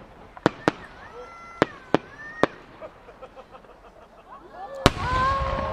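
A firework shell going up: several sharp small pops from its rising effects in the first two and a half seconds. Then, near the end, the loud bang of the size 8 (9.6-inch) chrysanthemum shell bursting, followed by a long low rumble.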